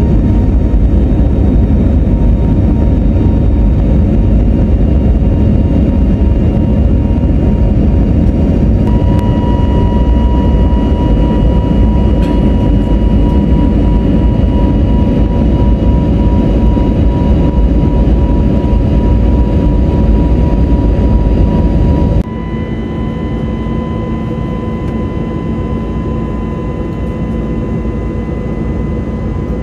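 Airbus A320 cabin noise in the climb, heard from a seat beside the wing: the jet engines run with a steady rushing noise and a steady whine on top. About three-quarters of the way through, the noise drops suddenly to a lower level and the whine shifts slightly in pitch.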